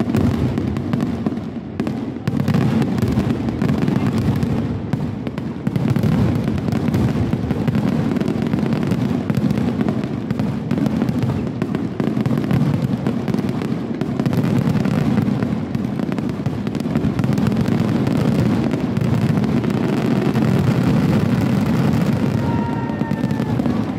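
Fireworks display overhead: a dense, continuous barrage of shell bursts and crackling, the booms running into one another with only brief lulls. A few whistling glides come in near the end.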